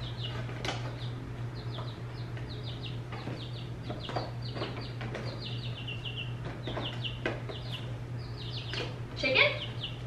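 Baby silkie chicks peeping in rapid runs of short, high, falling cheeps. Light knocks come from the cardboard carrier being handled against the wire cage.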